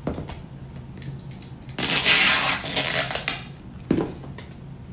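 Snap-on lid of a plastic cotton candy tub being pulled off, with loud crackling of the plastic for about a second and a half. A click near the start and a sharp knock near the end.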